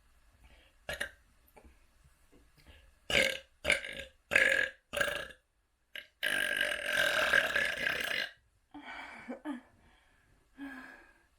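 A person burping: four short burps in quick succession, then one long burp lasting about two seconds, followed by a few weaker burps near the end.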